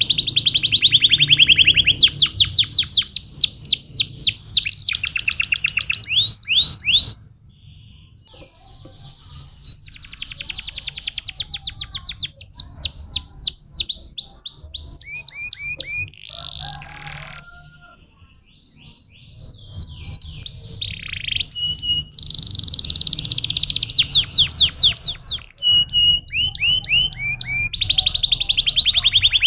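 Domestic canary singing: long rolling trills of rapidly repeated high notes, changing from one run to the next, with short lulls about seven and eighteen seconds in.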